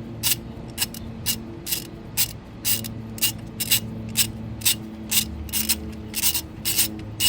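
Ratchet wrench with a spark plug socket clicking steadily, about two clicks a second, as it backs out a spark plug.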